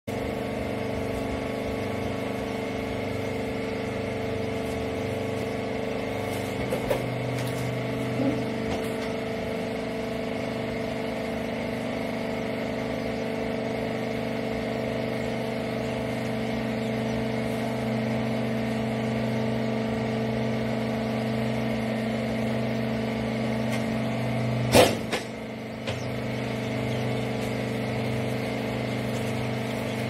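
Hydraulic rag baler's power unit running with a steady hum made of several fixed tones. A single sharp knock about 25 seconds in.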